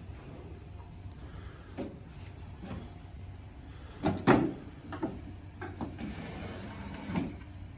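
Knocks and clunks of display-rack parts being handled and set in place during assembly, several separate knocks with the loudest clunk about four seconds in.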